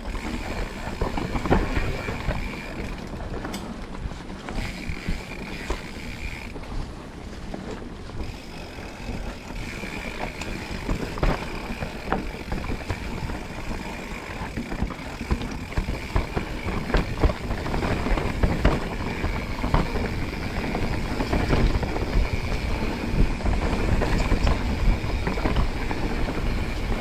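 Mountain bike riding fast down a dirt trail: tyres on rough ground and the bike rattling and knocking over bumps, with a steady high buzz that drops out twice early on. The rattling grows heavier in the second half.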